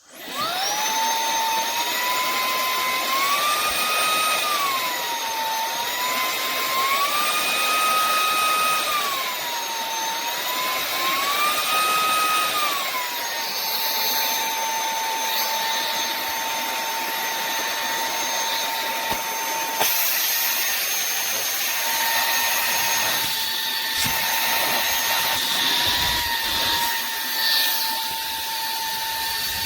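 Cordless handheld vacuum cleaner with a brushless motor switching on, its high motor whine spinning up within half a second. The pitch rises and falls about three times early on, then holds steady over the rushing airflow.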